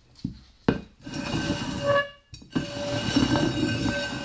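Upturned terracotta flower pots shuffled by hand across a hard floor: a knock less than a second in, then two long grinding scrapes with a squeaky ringing note as the clay drags over the floor.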